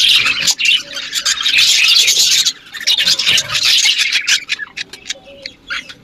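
Budgerigars squawking and chirping in a dense, raspy chatter that thins to scattered chirps near the end.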